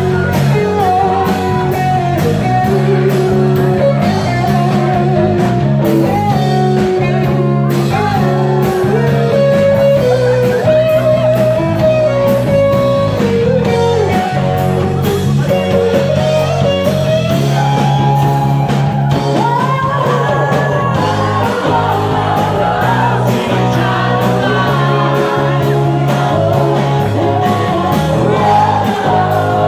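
Live rock band playing loudly: a woman singing over guitar and a drum kit keeping a steady beat.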